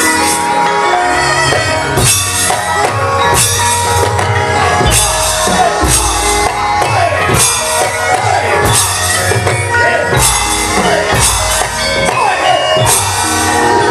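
Javanese gamelan ensemble playing loudly, with metallophone tones over strong strokes about every second and a half and deep low notes sounding twice.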